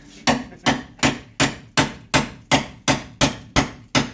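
Metal hand tool striking the rusted sheet-metal bodywork of a truck cab in a steady rhythm, about eleven sharp blows at nearly three a second, each ringing briefly.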